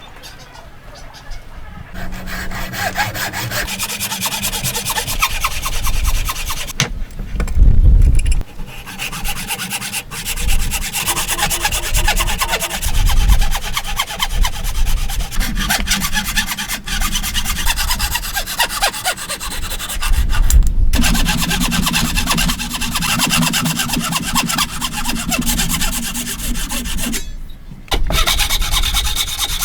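Hand saw cutting wood in steady repeated strokes, with a few short pauses and a heavier bump about eight seconds in.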